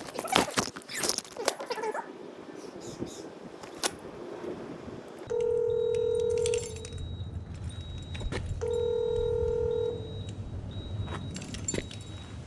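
Door-entry intercom calling a flat: two long, steady ringing tones, a few seconds apart, over a low hum from the line. Handling clatter and clicks come first.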